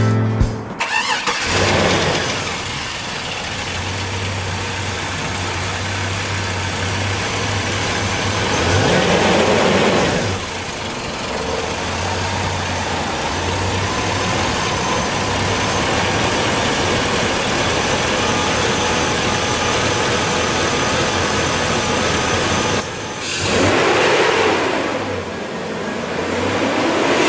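Chevrolet Silverado's Vortec V8, fitted with an aftermarket cold air intake, starts about a second in and settles into a steady idle. It is revved and allowed to fall back three times: once near the middle and twice near the end.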